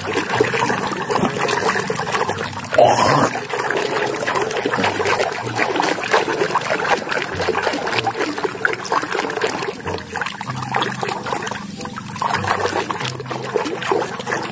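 Water trickling and splashing with small crackling rubbing noises as a muddy plastic toy is washed by hand. A short rising squeak sounds about three seconds in.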